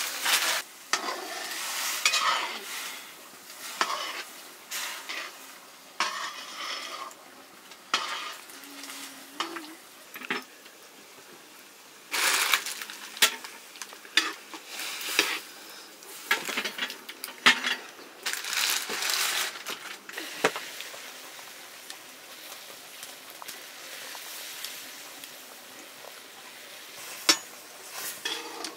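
Food frying in a pan while it is stirred, the utensil scraping and clinking against the pan in irregular bursts over a sizzle. For the last several seconds the stirring mostly stops and a steadier, quieter sizzle goes on, with one sharp clink near the end.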